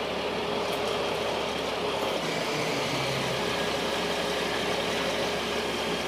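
Crane truck's engine running steadily while the crane lowers a load: an even, unchanging drone with a faint steady hum.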